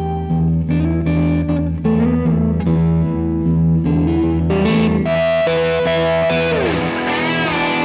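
Outro music: distorted electric guitar over a held low bass note, the notes changing every half second or so. Near the end a pitch slides down and the music turns fuller and noisier.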